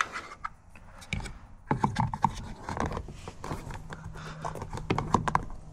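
Plastic car door trim being pressed and worked into place by hand: an irregular run of clicks, small knocks and rubbing as the door-pull and handle surround are seated in the door card.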